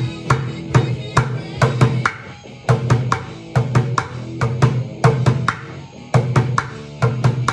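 Bucket drumming on an upturned 5-gallon plastic bucket with wooden drumsticks: a fast, steady rock rhythm of low, ringing strokes mixed with sharper, higher cracks.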